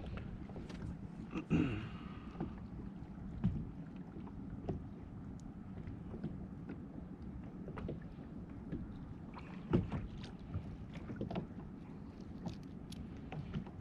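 Kayak on the water: a steady low wash of water and wind on the microphone, with scattered small clicks and a few louder knocks against the hull, about a second and a half in and again near ten seconds.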